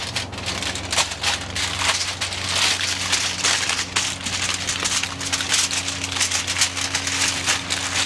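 Wrapping material crinkling and rustling with many sharp crackles as it is folded tightly around a turkey breast; a low steady hum runs underneath.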